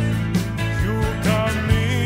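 Background music with a steady beat and held bass notes; a melody line comes in about a second in.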